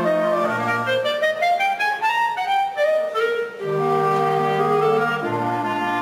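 Ensemble of clarinets playing together in harmony over a bass line. A busy passage of quick, moving notes gives way to held chords about three and a half seconds in.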